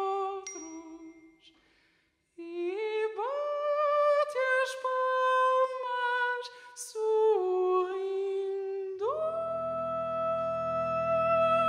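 Glockenspiel notes ring and die away. After a brief silence a man hums a slow wordless melody, sliding up into long held notes. About nine seconds in, low sustained tones enter beneath his voice.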